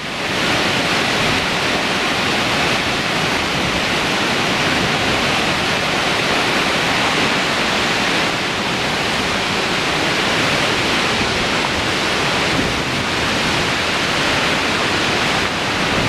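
Lehner Waterfall, a tall alpine waterfall, pouring onto rocks close by: a loud, steady rush of water without a break.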